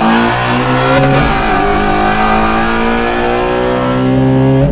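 Car engine at full throttle, heard from inside the cabin, its pitch climbing steadily as it accelerates. It shifts up about a second in and again at the very end.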